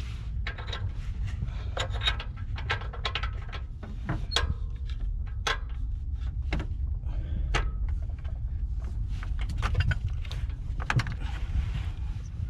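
Metal hand tools clinking and knocking at an irregular pace as a socket and extension are worked onto an oxygen sensor, over a steady low rumble.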